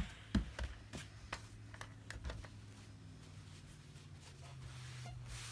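Hands handling and flipping a cotton fabric piece beside a steam iron: a few light knocks and clicks in the first couple of seconds, then faint rustling over a faint low steady hum.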